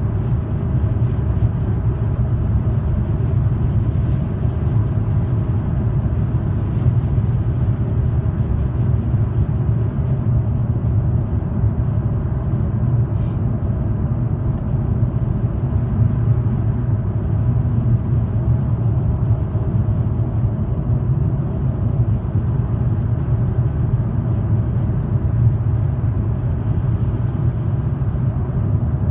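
Steady low rumble of road and engine noise inside a car cabin at highway speed. A single faint click comes about thirteen seconds in.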